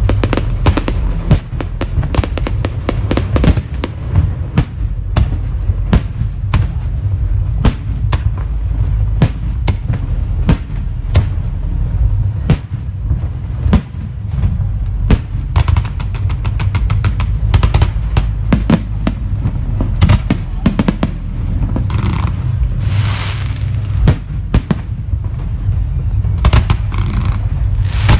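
Fireworks bursting in quick succession: many sharp bangs and crackles over a continuous low rumble, with a longer hiss about two-thirds of the way through.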